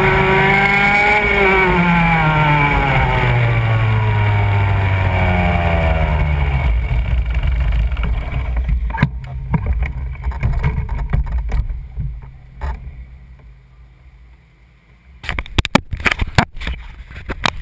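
Go-kart engine slowing down, its pitch falling steadily as the kart coasts in, then dying away about eight seconds in. Scattered knocks follow, and close clatter and knocking near the end.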